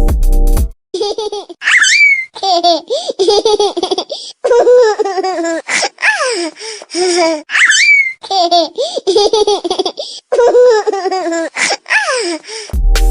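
A baby laughing, played as a funny ringtone: bursts of giggles with high squeals. The laughing clip starts over about six seconds in.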